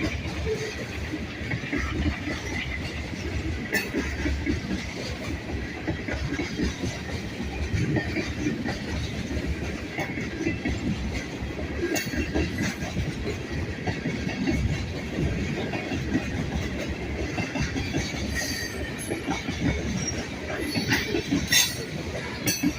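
Railroad cars rolling past, wheels clicking over the rail joints in a steady clatter, with brief high-pitched wheel squeals, more of them near the end.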